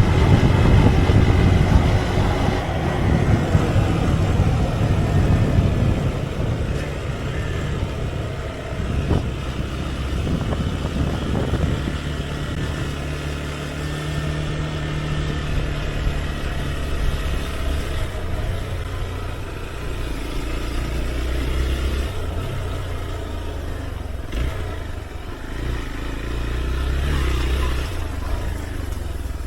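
Hero XPulse 200 single-cylinder motorcycle engine running while riding, its pitch shifting with the throttle, with rumbling wind and road noise that is loudest in the first few seconds.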